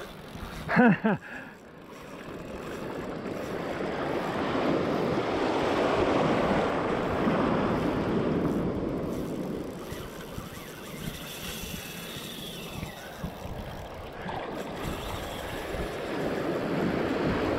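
Surf washing in around the angler's legs, swelling over several seconds and ebbing again, with wind on the microphone. A short voiced exclamation about a second in is the loudest sound.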